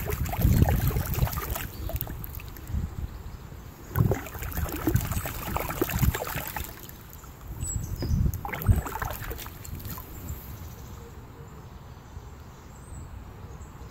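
Irregular knocking, scraping and handling noise as a ceramic insulator is worked loose from an old wooden beam, in several bursts, then quieter for the last few seconds.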